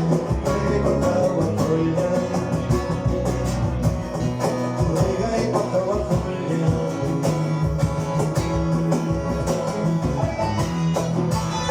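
Live band playing an instrumental passage: plucked guitars over sustained bass notes and a steady beat.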